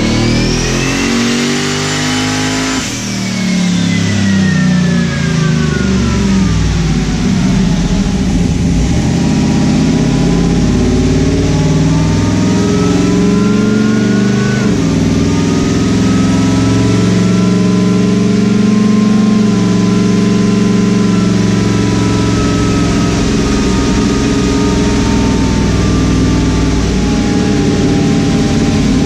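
Twin-turbo 376 cu in LS V8 running on a chassis dyno: the revs and a high whine climb for about three seconds, then fall away over several seconds, and the engine runs on at a steadier, lower speed.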